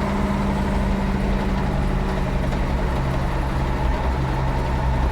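Ford 9700 tractor's six-cylinder diesel engine running steadily, its note dropping a little about three and a half seconds in.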